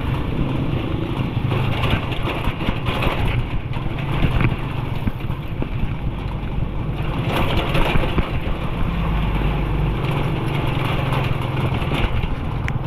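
A motor vehicle's engine running, a steady hum with no break.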